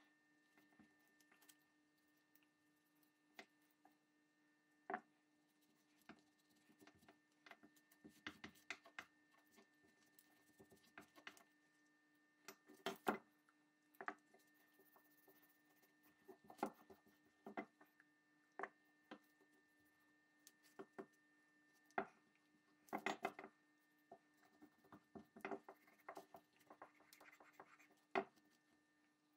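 Faint, scattered clicks and light taps of small metal pepperbox pistol parts being handled and set down on a paper towel over a wooden bench. A faint steady hum runs underneath.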